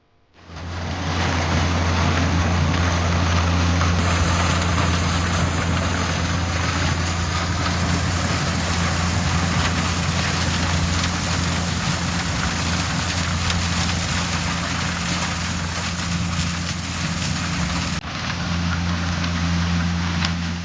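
Yanmar corn harvester running steadily, its engine's low hum carrying a broad clatter of machinery noise.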